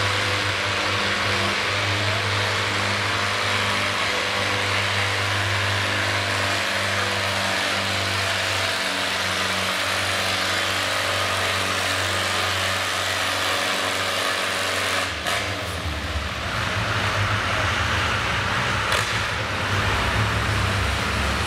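Farmall tractor engine running steadily under load, pulling a weighted sled at a set pace. About fifteen seconds in there is a sharp knock, and the engine sound turns deeper and rougher.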